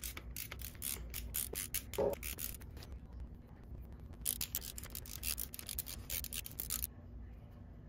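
Ratchet with a spark plug socket on an extension clicking in quick runs as the spark plugs are unscrewed from a Harley-Davidson twin cam's cylinder heads: two bursts of rapid clicks with a pause between.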